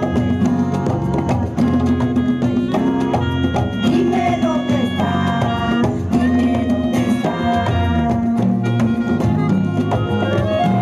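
A live ethnic-folk band playing an instrumental passage: melody instruments over a steady drumbeat, with no singing.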